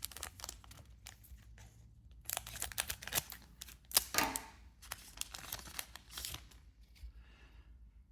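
One Piece Card Game booster pack and cards being handled: a run of papery clicks, slides and crinkling as the cards are flipped and the foil wrapper is worked, busiest and loudest between about two and four and a half seconds in.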